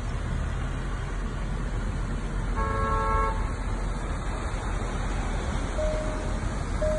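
Steady rush of wind and heavy rain over a flooded street. A car horn honks once, briefly, about three seconds in. Near the end a plain beeping tone starts repeating about once a second.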